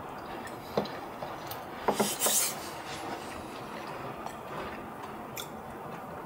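Metal spoons scraping and clinking against ceramic bowls as people eat, with a few sharp clinks, the loudest about two seconds in.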